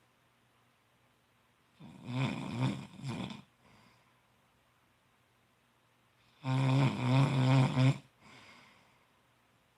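A man snoring in his sleep. There are two loud, pitched snores about four and a half seconds apart, each lasting about a second and a half and trailing off into a faint breath.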